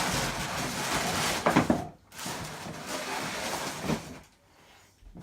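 Handling noise: rustling and sliding of gear and packaging, in two stretches with a brief break about two seconds in, stopping after about four seconds.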